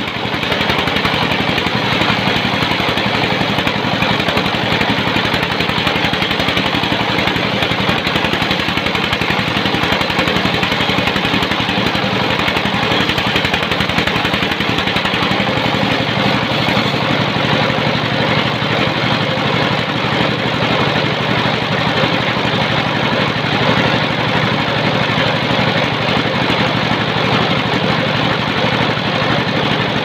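A sawmill's engine running steadily and loud.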